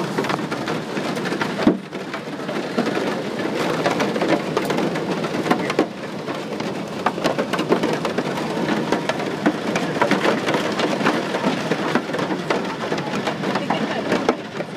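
Hail and rain pelting the airliner's fuselage and windows, heard from inside the cabin as a dense, steady clatter of impacts. One louder hit stands out about two seconds in.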